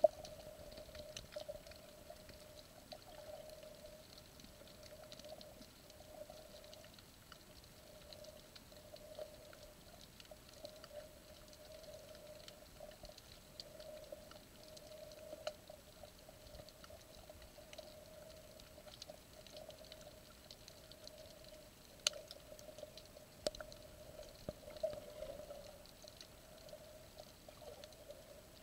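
Faint, muffled underwater sound picked up through a camera's waterproof housing: a steady low hum with scattered small clicks and crackles, one sharper click near the end.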